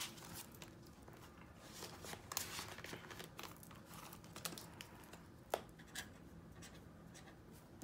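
Faint crinkling and rustling of clear plastic binder envelopes and paper bills being handled, with scattered light clicks.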